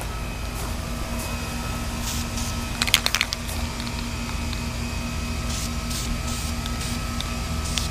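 VHT aerosol spray paint can: a quick cluster of rattling clicks about three seconds in, then short hisses of spray near the middle and end, over a steady low hum.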